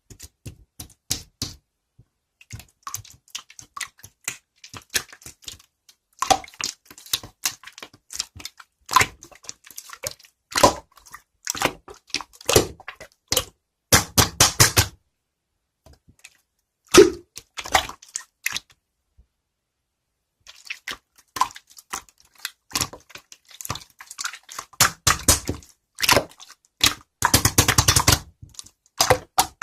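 Irregular series of short, sharp clicks, taps and crackles, some in quick rattling clusters, with dead-silent gaps between them.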